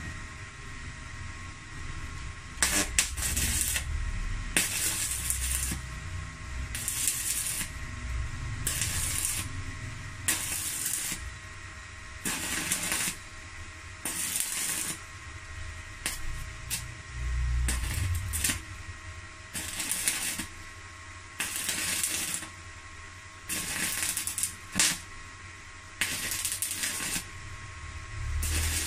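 Stick-welding arc from a Megatec mini inverter welder with a 2.6 mm rod, struck again and again in hissing, crackling bursts of about a second each, every couple of seconds. The welding current has just been turned down because the arc was running a bit strong.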